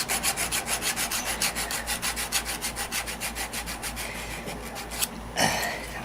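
Quick back-and-forth hand-tool strokes on 3/8-inch copper tubing, about six a second, working the pipe end square so it can be flared. The strokes stop briefly near the end, followed by one louder scrape.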